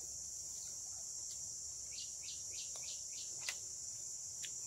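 Steady high-pitched drone of insects, with a quick run of about six short chirps around two seconds in. A sharp click comes a little after them and is the loudest sound, with a fainter click near the end.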